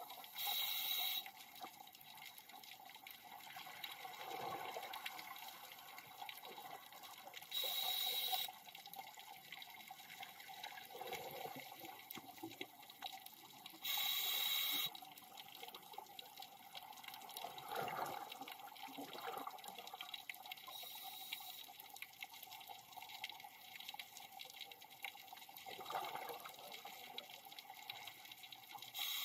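Scuba breathing heard underwater: a short hiss from the regulator about every seven seconds, with bursts of bubbling from exhaled air in between, in a steady breathing rhythm.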